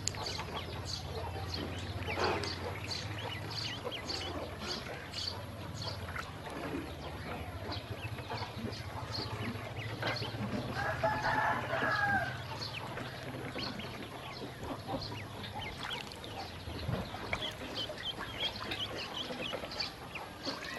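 A group of ducklings peeping in many short, high chirps, with a louder clucking call about halfway through and a low steady hum underneath.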